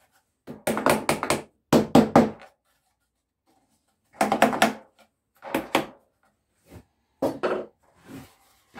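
Claw hammer tapping a wooden entrance block into a cedar beehive floor frame. The knocks come in quick runs of three to five, with short pauses between, and fall to single or paired taps near the end.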